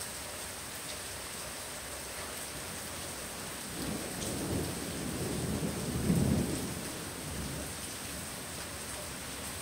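Steady heavy rain with a roll of thunder that builds about four seconds in, rumbles loudest about six seconds in, and fades out a second later.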